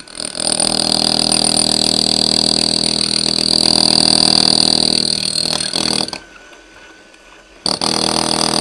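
Electric power tool running steadily with a high whine, cutting off about six seconds in and starting again a second and a half later, as when the trigger is released and pressed again.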